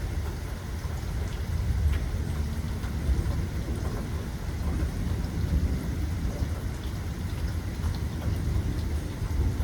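Steady rain falling, with a continuous low rumble of distant thunder underneath that swells and fades.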